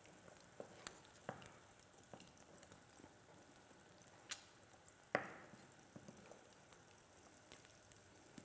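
Knife slicing mozzarella on a wooden cutting board: a few scattered light taps of the blade on the board, the sharpest one about five seconds in. Under them runs a faint sizzle from the omelette cooking in its pan.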